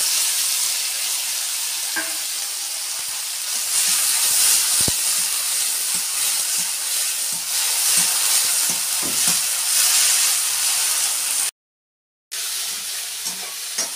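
Boiled dried prawns sizzling steadily in hot oil in a kadai, stirred with a metal spatula. The sound cuts out completely for a moment near the end, then the sizzling resumes.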